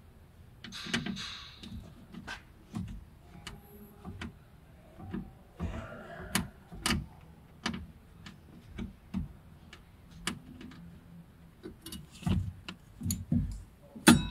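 Irregular clicks, knocks and scrapes of tools and parts being handled while working on a car door lock actuator, with short rustling stretches about a second in and around six seconds, and the sharpest knock near the end.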